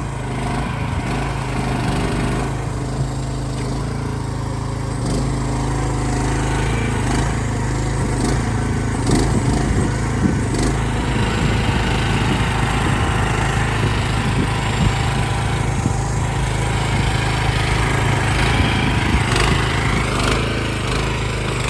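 Small engine of a mini excavator running steadily as the machine digs, with a few short knocks about nine to eleven seconds in.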